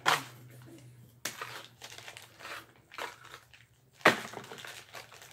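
A collectible minifigure's wrapper crinkled and torn open by hand, in several short rustling bursts, the loudest about four seconds in.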